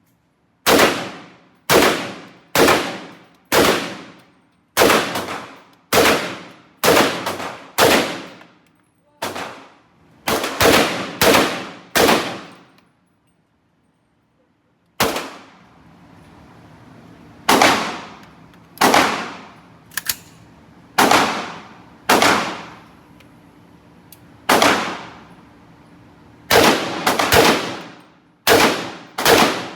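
Gunshots at a shooting range: a long string of single shots, irregularly spaced about one or two a second, each with a short echoing tail, with a pause of about two seconds near the middle.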